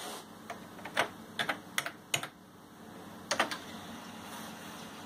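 Keys being pressed on a Schneider CPC 464 computer keyboard: about eight separate keystrokes in two short runs as a disk command is typed in.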